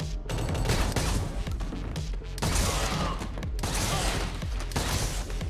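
Film action mix of repeated shotgun blasts from dragon's breath incendiary rounds, each shot letting off a long noisy rush of about a second, with scattered rapid gunfire, all over a pounding electronic score with heavy bass.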